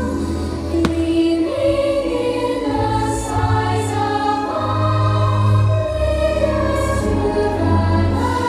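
Orchestral show soundtrack with a choir singing long held notes over a steady bass, played loud over outdoor loudspeakers.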